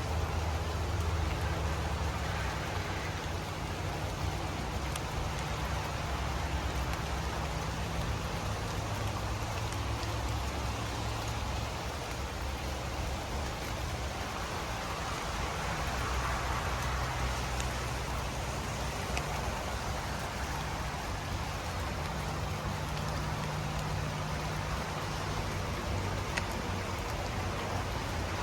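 Steady rain falling, an even hiss with scattered faint drop ticks, over a low rumbling hum that fades and returns.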